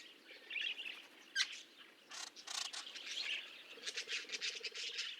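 Small birds chirping in short, scattered calls and brief trills, fairly faint.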